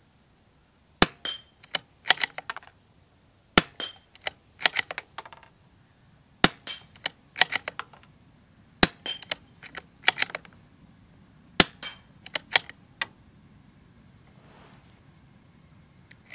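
Five moderated shots from a CZ 457 Royal bolt-action .22 LR rifle, about two and a half seconds apart. Each shot is followed by a quick run of clicks as the bolt is worked to chamber the next round.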